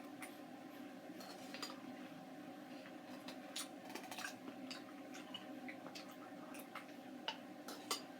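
Faint, scattered light clicks of an eating utensil against its dish while eating, over a steady low hum.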